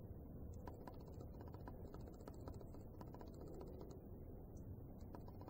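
Faint low rumble with scattered light clicks, like handling noise.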